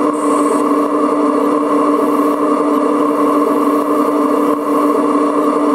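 Radio-controlled scale model Liebherr 956 excavator running, its hydraulic pump drive giving a loud, steady, even whine.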